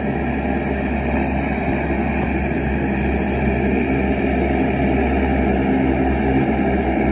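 The twin turboprop engines of a Saab 340 airliner running at taxi power as it rolls past: a steady propeller drone that grows slightly louder.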